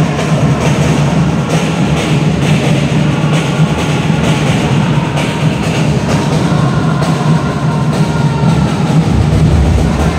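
Supporters' drums beating a steady rhythm in the stands, with the crowd chanting along.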